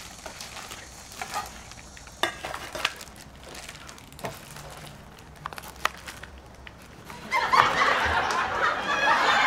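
Kitchen knife slicing green tangerines on a cutting board: scattered light knocks and clicks of the blade and slices. About seven seconds in, a louder, steady rustling crunch of cutting begins.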